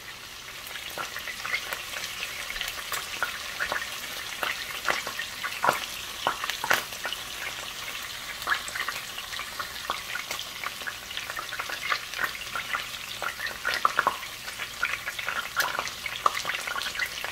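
Two marinated steaks sizzling in hot avocado oil in a frying pan: a steady hiss with many sharp pops and crackles of spattering oil. It grows louder about a second in, as the mesh splatter screen comes off the pan.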